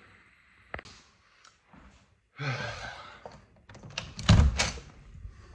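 A few clicks and a rustle, then a door shutting with a heavy thump a little after four seconds in.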